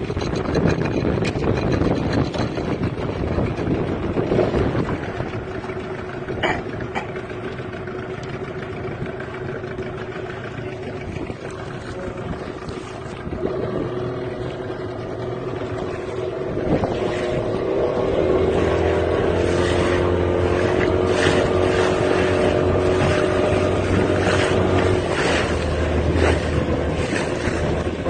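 Motorboat engine running, with wind buffeting the microphone; the engine hum grows louder and steadier about two-thirds of the way through.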